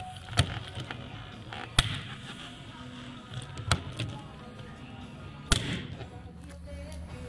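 Craftsman hand riveter setting blind (pop) rivets: four sharp snaps one and a half to two seconds apart as each rivet's mandrel breaks off, with a few fainter clicks between, over background music.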